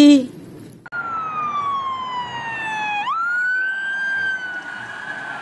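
Police car siren wailing: one slow falling sweep, then a quick rise about three seconds in, held high to the end.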